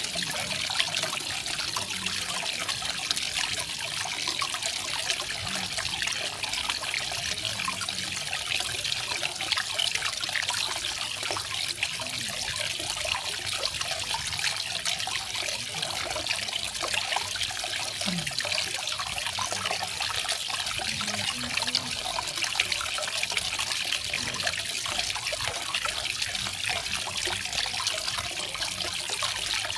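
Small garden waterfall splashing and trickling steadily, a fine hissing patter of falling water.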